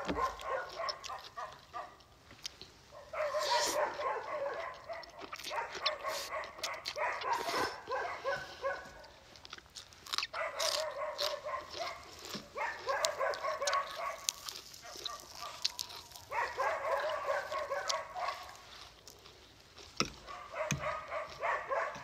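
A dog barking in bouts of rapid yaps, each bout lasting two or three seconds with short pauses between, about seven bouts in all.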